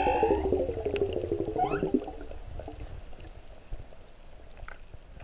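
Humpback whale song heard underwater. A held moan fades out within the first half second, a falling series of pulsed grunts runs on to about two seconds in with a short rising whoop near its end, and then only a faint wash of water with light clicks remains.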